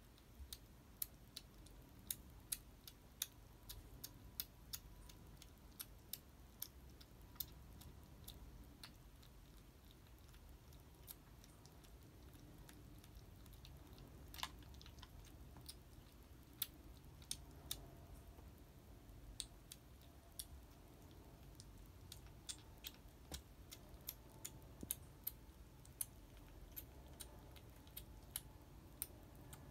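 A kitten chewing dry cat kibble: faint, irregular sharp crunches, at times several a second, over low room hum.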